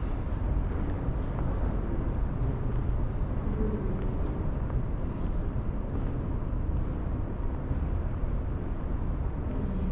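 Steady low rumble of a large mall's ventilation and air handling in an empty concourse, with a brief high squeak about five seconds in.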